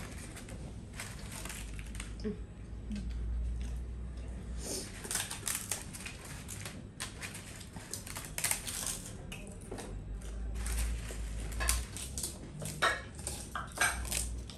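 Close-up eating sounds: crisp crackers bitten and chewed with a dry crackling crunch, with small clinks of spoons and dishes. The crunching sets in about a third of the way through and comes thick and irregular to the end.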